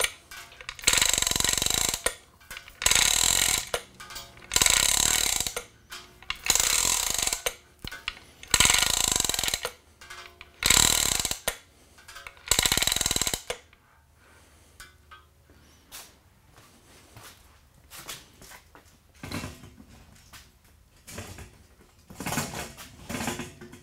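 Manual chain hoist being hand-pulled to lift a cast-iron lathe bed: the chain rattles through the hoist in about eight pulls, one every second and a half or so, and stops a little past halfway. Fainter knocks and clinks follow near the end.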